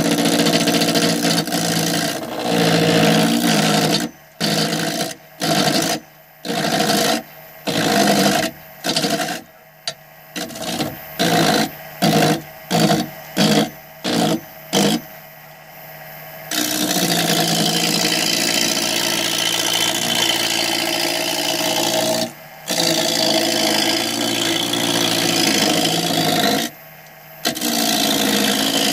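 Wood lathe running while a turning tool cuts a spinning wooden spindle blank. The cutting comes in many short passes that start and stop quickly for a while, then settles into a long, steady cut broken by two brief pauses.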